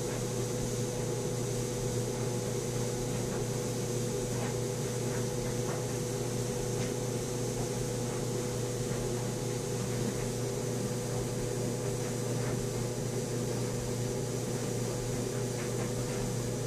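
Steady low mechanical hum with an even hiss, like a fan running, with a few faint light taps scattered through it.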